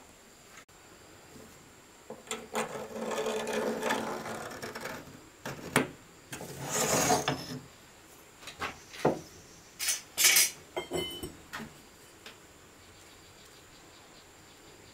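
Wood scraping and rubbing in two stretches, followed by a string of sharp wooden knocks and clacks.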